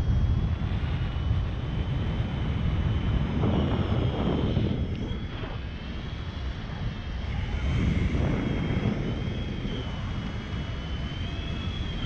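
Wind rushing and buffeting over an action camera's microphone in paraglider flight, swelling and easing every few seconds, with a thin high whistle that wavers in pitch.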